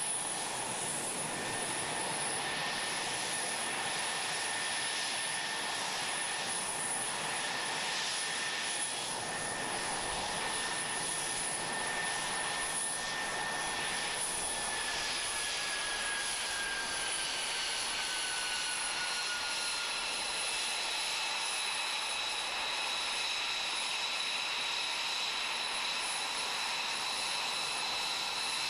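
F-22 Raptor jet engines running steadily: a constant hiss with high whining tones. About halfway through, one whine slides gently down in pitch while higher whining tones come in.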